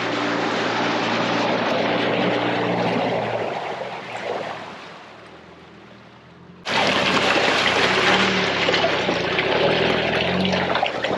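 Off-road vehicle driving along a trail: its engine running steadily under a loud rushing noise. The sound fades away about four seconds in, then comes back abruptly at full loudness a little past the halfway point.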